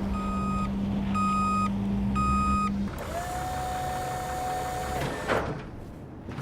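A vehicle's reversing alarm beeping about once a second, four half-second beeps in all, over a running engine. The beeps then give way to a single steady higher tone of about two seconds that cuts off suddenly.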